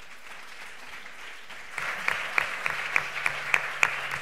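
Audience applause after a lecture ends, swelling up and growing louder about two seconds in, with a few sharp, closer claps standing out about three a second.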